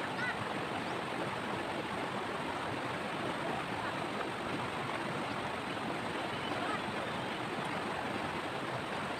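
River water rushing steadily over and between rocks in a shallow, boulder-filled stretch.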